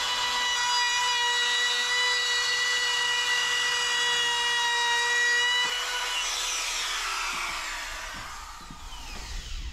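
Compact trim router running with a steady high whine, its 1/4-inch straight bit cutting a slot along a seam in wooden boat planking. About six seconds in it is switched off and the whine falls away as the motor spins down.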